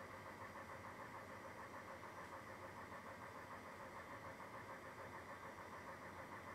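Faint, steady machine hum, even and unbroken throughout.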